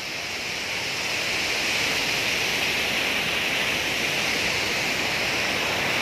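Steady rushing roar of Aharbal waterfall, the Vishav River's whitewater pouring over rocks. It grows a little louder in the first second, then holds steady.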